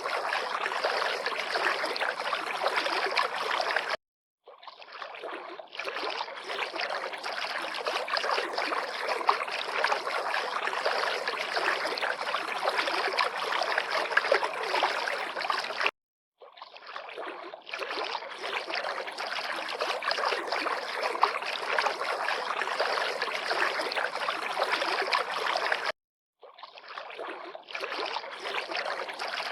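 River water lapping and splashing in a steady, crackling rush. It cuts off abruptly three times, each followed by a moment of silence and a fade back in.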